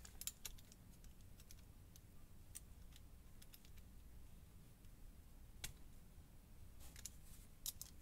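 Faint, scattered small metallic clicks from fingers prying at the retaining clip on a euro cylinder lock's cam, trying to work it off. There is a sharper click about halfway through and a short run of clicks near the end.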